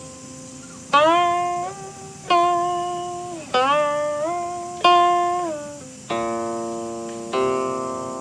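Guqin played solo: six plucked notes about a second and a quarter apart, each sliding up in pitch after it is plucked and gliding back down as it fades.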